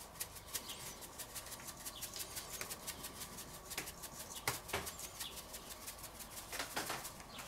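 Salt shaker being shaken, a rapid, faint rattle of salt grains, with two sharper knocks about halfway through.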